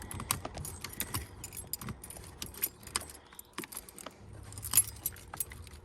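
Irregular light clicks and clinks of small hard objects being handled, over a faint low hum; the engine is not cranking.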